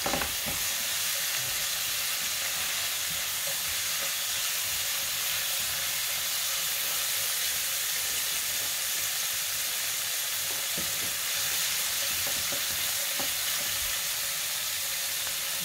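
Oil sizzling steadily in a frying pan as sliced onions, sweet preserved radish and chili flakes fry over medium heat, with an occasional soft scrape of a silicone spatula stirring them.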